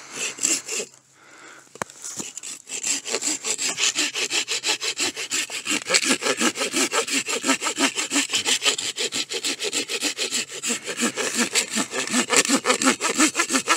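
Folding hand saw cutting into a dead, dry cedar log: rapid, even push-and-pull strokes, about four a second, starting a couple of seconds in.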